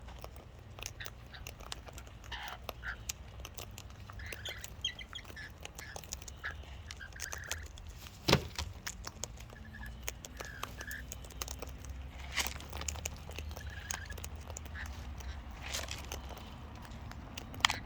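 Cockatoo eating seed at close range: many sharp clicks of its beak working the seed, with short soft chirps and one louder knock about eight seconds in, over a steady low rumble.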